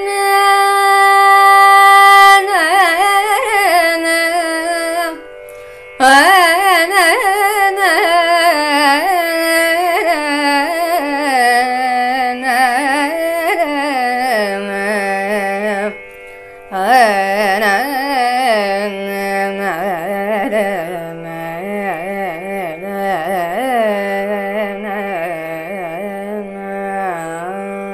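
A woman's solo Carnatic singing in raga Ramapriya, without recognisable words, her pitch sliding and shaking in ornamented curves over a steady drone. She breaks off twice for breath, about five and sixteen seconds in.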